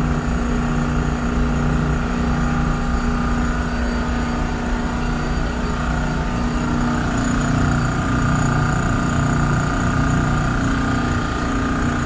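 Steady drone of running machinery, with a constant low hum.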